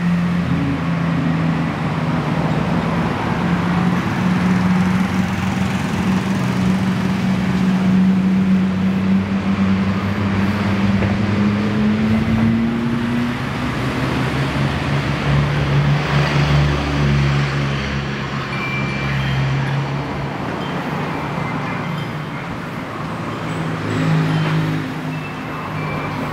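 Street traffic: motor vehicle engines running and passing, with a steady low engine hum that shifts lower in pitch about halfway through.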